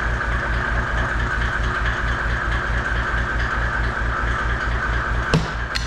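An engine idling steadily with a rapid low throb, and a single sharp click or knock near the end.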